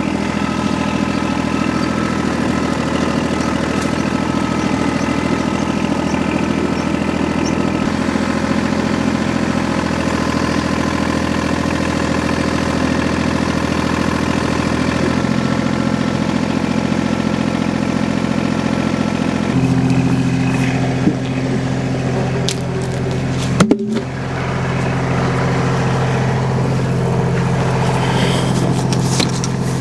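Tractor engine running steadily. Its note changes about halfway through and changes again, heavier, a few seconds later, and there is a brief knock about three-quarters of the way in.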